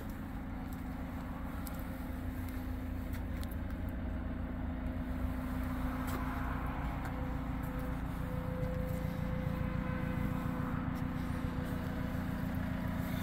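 Diesel engine of a JCB wheel loader running steadily, a low drone that grows slightly louder over the seconds.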